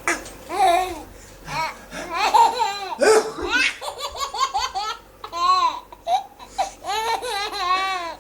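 Baby laughing loudly in repeated high-pitched peals, each a run of short rising-and-falling bursts with brief pauses between, a laughing fit set off by sneezes.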